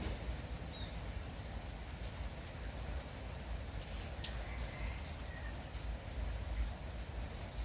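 Light, steady morning drizzle pattering, with single drops now and then. Short bird chirps break in a few times, about a second in and again around four to five seconds in.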